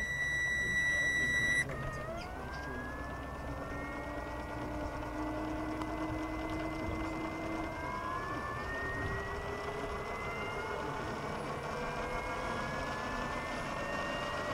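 A steady high tone for about the first second and a half, cutting off abruptly. Then the electric motor and gear train of a large scale RC model of the Lockheed XH-51N helicopter spooling up: a whine that rises slowly and steadily in pitch as the rotor gathers speed, with a second rising whine joining about eight seconds in.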